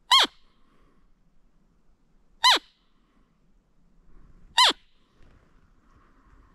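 A roe deer fiep call: a short, high, squeaky cry that sweeps steeply downward, given three times about two seconds apart.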